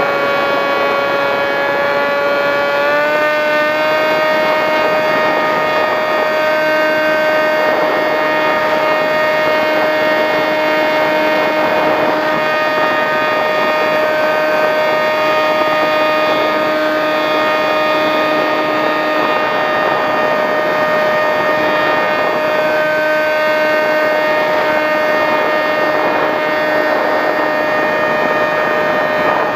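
Electric motor and propeller of a Skywalker RC plane (910kv brushless motor) whining steadily in flight, heard from the onboard camera over a hiss of air. About three seconds in the pitch steps up, then holds steady.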